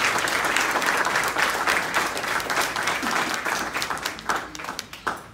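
Audience applauding, dying away near the end into a few scattered claps.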